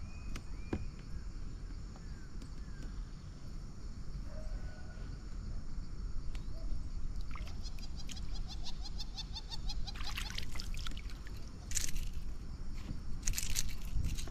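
A steady low rush with scattered short bird chirps over it. About halfway through a rapid trill starts, and several louder calls come in the last few seconds.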